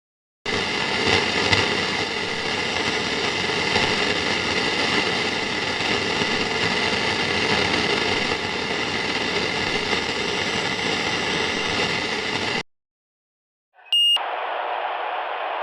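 White noise sound effect: a steady, wide hiss that cuts off suddenly about twelve seconds in. After a second of silence comes a brief tone, then a duller, narrower noise.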